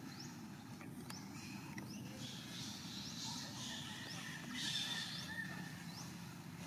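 High, shrill animal squeals and cries, loudest about halfway through, over a short high rising chirp that repeats about once a second.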